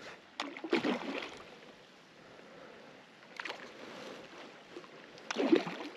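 A hooked trout splashing at the surface close to the bank: a few short, sudden splashes over a low wash of water noise.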